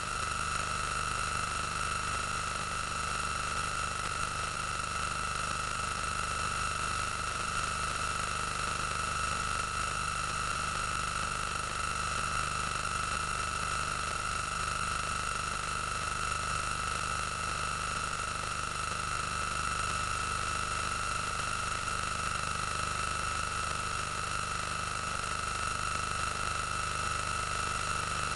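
Steady hiss with a constant high-pitched hum over it, unchanging throughout and unrelated to the action on screen.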